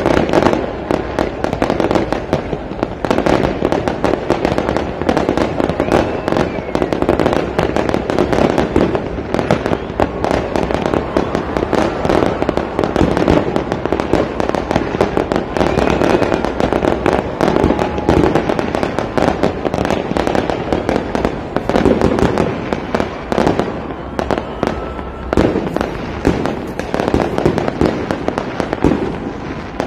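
Aerial fireworks going off in a continuous barrage: dense, rapid bangs and crackling that run on without a pause.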